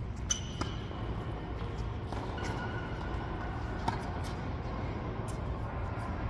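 Tennis balls struck by rackets in a doubles rally on an indoor hard court: a serve hit about a third of a second in, a second sharp hit near four seconds, and a few light ball knocks in between, with short squeaks and a steady low rumble underneath.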